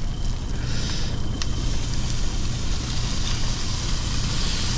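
Truck's diesel engine idling with a steady low rumble, under an even hiss of food frying in a pan, with one faint click about a second and a half in.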